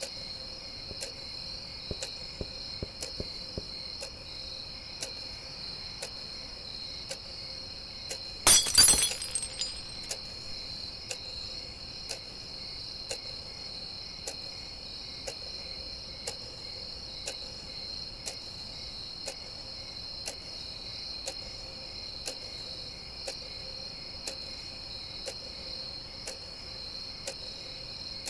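Crickets chirping in a steady high drone with a clock ticking about twice a second. About eight and a half seconds in, glass shatters loudly, its pieces tinkling for about a second.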